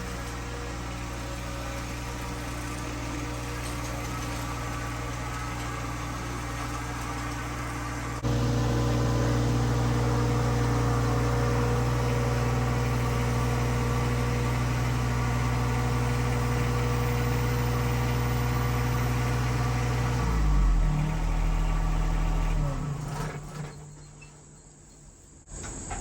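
Vehicle engine running steadily. It gets suddenly louder about eight seconds in, then winds down with falling pitch and shuts off near the end.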